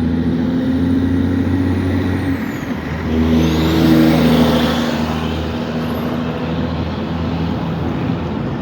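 Heavy truck's diesel engine running as it passes, swelling to its loudest about three to five seconds in.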